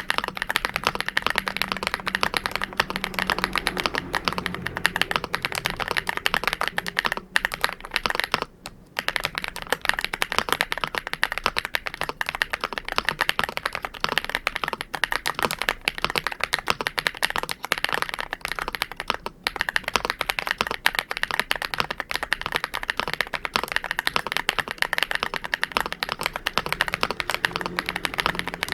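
Continuous fast typing on an MCHOSE GX87 mechanical keyboard with Matcha Latte switches: a dense, quick run of keystrokes with a short pause about eight seconds in and another about nineteen seconds in.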